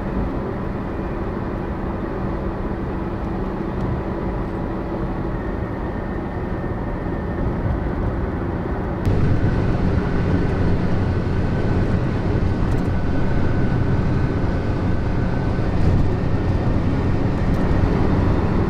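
Car driving along, heard from inside the cabin with the windows rolled down: steady engine, tyre and wind noise. It jumps suddenly louder and heavier about nine seconds in.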